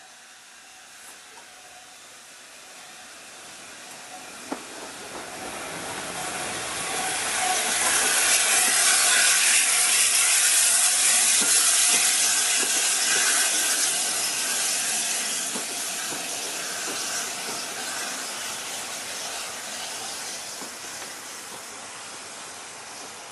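Steam locomotive and train going by with a loud hiss of steam that builds over several seconds, peaks in the middle and slowly dies away. A single sharp click sounds about four and a half seconds in.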